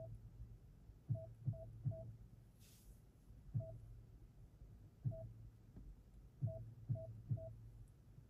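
Short electronic beeps, each with a soft click or thump, like button-press feedback. There are about nine, at uneven intervals, some in quick runs of two or three.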